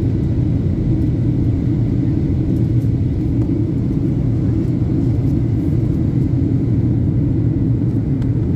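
Steady low rumble of an airliner heard from inside the cabin: engine and airflow noise, unchanging in level.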